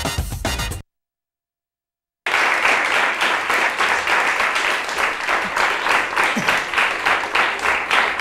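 Program theme music cuts off abruptly under a second in, followed by about a second and a half of dead silence, then a studio audience applauding steadily.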